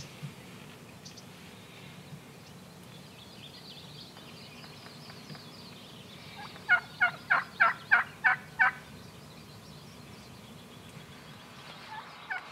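Turkey yelping: a run of seven evenly spaced notes over about two seconds, midway through. A songbird twitters faintly before it, and there are a couple of light scrapes near the end.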